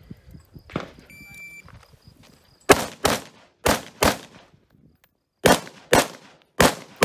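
Shot-timer start beep a little over a second in, then a Diamondback DB10 .308 semi-automatic rifle firing about eight shots in four quick pairs, the two shots of each pair about half a second apart.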